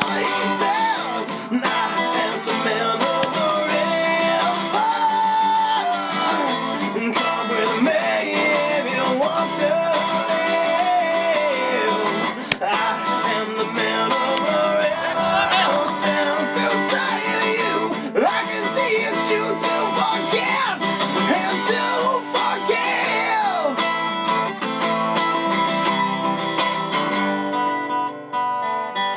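Background music: a song with strummed acoustic guitar and a singing voice, fading near the end.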